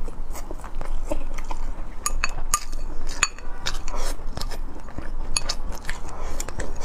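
Metal chopsticks clinking repeatedly against a glass bowl, with close-up chewing between the clinks.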